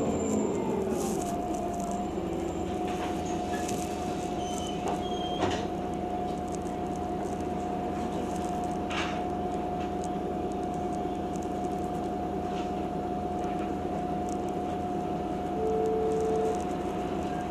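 Cabin sound of a Heuliez GX 137L city bus: its drive note falls away as the bus slows about a second in, then a steady high whine holds while it runs slowly or stands. A short beep sounds near the end.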